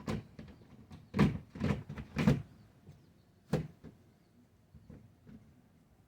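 A series of short knocks and bangs, like a door, lid or container being handled: one at the start, three loud ones in quick succession about a second in, and a last one about halfway through.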